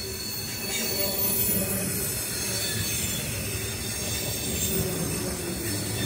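Freight train cars rolling steadily past on the rails, with thin, high wheel squeal over the rumble.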